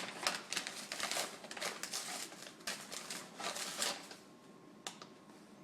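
Rapid scraping, tapping and rustling as stubborn sugar is knocked and scraped loose into a mixing bowl, in quick clusters for about four seconds, followed by a single sharp click.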